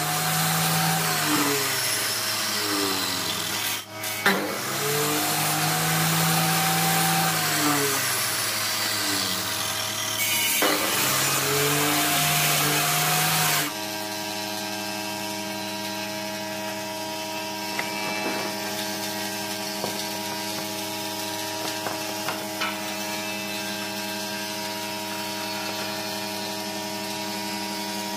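Makita miter saw cutting through softwood strips, three cuts in a row with short breaks between, the motor's pitch rising and falling through each cut. About fourteen seconds in the sawing stops and a steady hum remains, with a few faint taps of wood on the bench.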